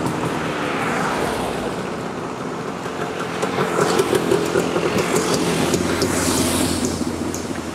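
A line of vehicles driving past: a classic Citroën DS goes by, then motorcycles come up and pass one after another, with engines running and tyres on asphalt. An engine note rises and falls in the middle as one machine passes.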